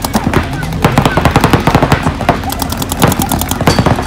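Several paintball markers firing rapid strings of shots, the shots thickest from about two and a half to three and a half seconds in.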